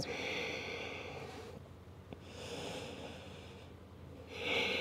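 A woman breathing heavily, three long breaths each lasting about a second and a half, a rushing hiss with no voice in it. She is out of breath from the exertion of holding a headstand.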